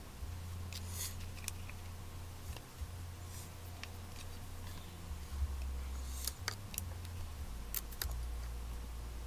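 Scattered light clicks and taps from makeup things being handled, over a low steady hum.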